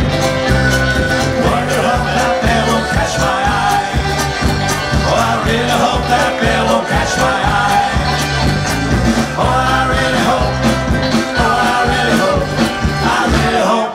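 Folk-rock band playing live through a PA: guitars and drums keeping a steady beat.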